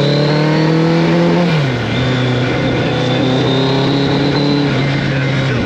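1983 Kawasaki GPZ1100's inline-four engine running under way: the engine note climbs, drops sharply about a second and a half in, then holds nearly steady and drops again near the end.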